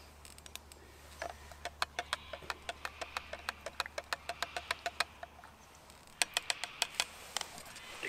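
A spoon stirring a drink in a metal camp cup, clinking against the sides about three or four times a second. After a short pause there are a few more clinks, then it stops.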